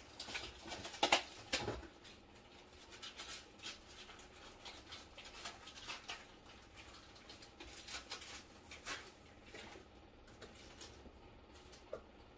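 Irregular rustling, clicking and light knocking of things being handled in a kitchen, loudest and busiest in the first two seconds, then scattered ticks and rustles.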